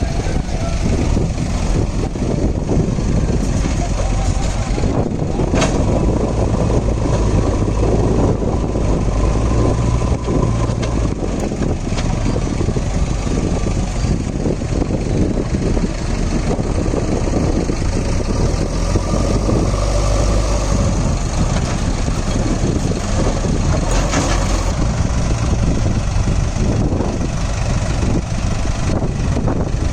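Heavy diesel engine running steadily, a continuous low drone.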